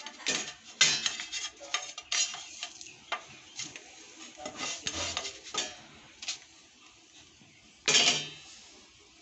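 Plastic spatula knocking and scraping against a small nonstick frying pan, a quick run of short clicks and scrapes, with a longer, louder scrape about eight seconds in.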